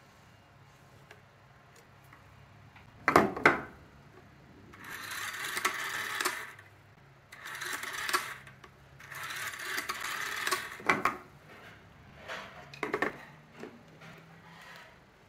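Rotary telephone handset lifted off its cradle with two sharp clacks, then the finger dial wound and let run back three times, each return a whirring rattle of about a second and a half. A few lighter clicks follow near the end.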